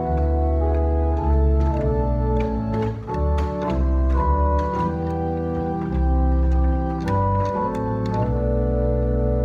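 Slow organ music: sustained chords over deep held bass notes, the harmony changing every second or so.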